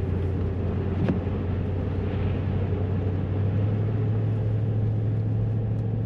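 Truck driving on a snowy, slushy road, heard from inside the cab: a steady engine and tyre drone, with a single sharp click about a second in.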